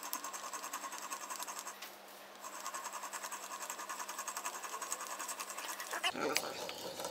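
Hand-cranked drill turning a twist bit into oak: a fast, even mechanical clicking whir of the turning drill and the bit cutting, with a brief pause about two seconds in before the cranking resumes.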